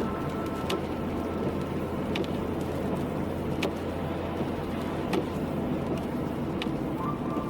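Car driving on a wet road in the rain: steady road and engine noise with a low hum, and a faint tick about every second and a half.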